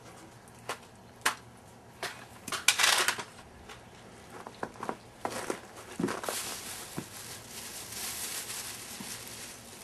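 Scattered footsteps and handling knocks, with a short crinkling rustle about three seconds in, like a plastic bag being handled, then a steady hiss.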